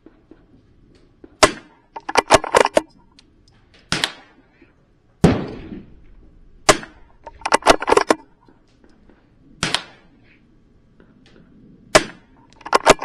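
A .22 LR precision rifle fired about five times, a few seconds apart, each shot a sharp crack. Quick runs of metallic clicks come between the shots as the action is cycled to chamber the next round.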